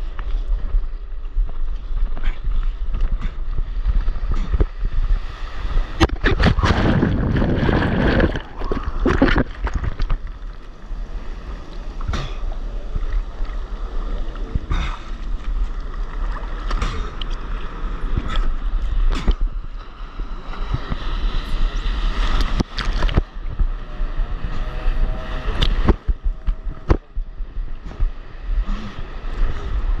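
Wind buffeting an action camera's microphone over rushing, splashing seawater as a stand-up paddleboard rides a breaking wave in the surf. A heavier surge of whitewater comes about seven to nine seconds in, with scattered sharp splashes and knocks throughout.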